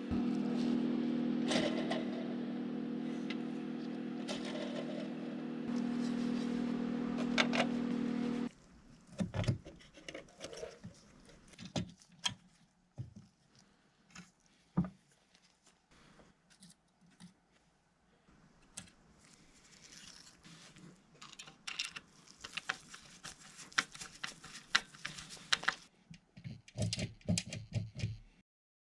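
A small motor hums steadily and cuts off abruptly about eight and a half seconds in. Then come scattered light clicks and taps of small parts being handled.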